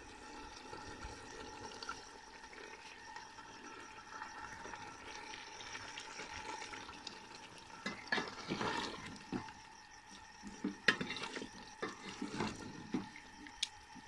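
Potato and beef curry sizzling and bubbling in ghee in an aluminium pot as it is fried down to dry out its water. From about eight seconds in, a spoon stirs through it, with several scrapes and knocks against the pot.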